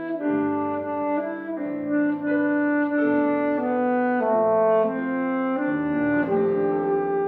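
Alto saxophone playing a melody of held and moving notes, accompanied by a grand piano.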